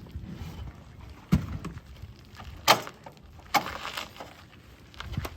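Three loud, sharp knocks, about a second apart, over a low rumble, with a smaller knock near the end.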